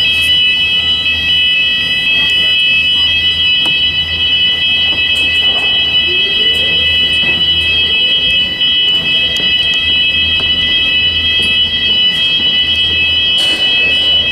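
Hyfire wireless fire alarm sounders going off together during a system test. They give a loud, steady, high-pitched continuous tone made of several close pitches at once, which comes on suddenly.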